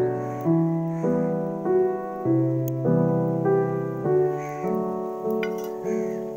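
Background music: a slow piano-like melody, notes struck about twice a second.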